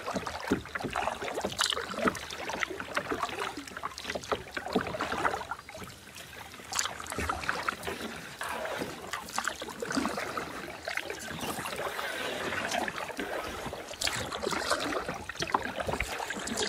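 Cool Kayaks Conger single-seat kayak being paddled: the paddle dips and drips, with water splashing and trickling at an irregular pace.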